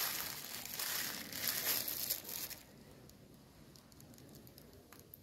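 Small plastic pouches crinkling and rustling as they are handled, for about the first two and a half seconds, then stopping.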